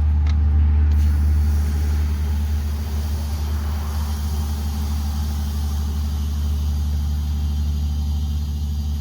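Air compressor running with a steady hum while air hisses into a tractor tire, inflating it to seat its bead on the rim.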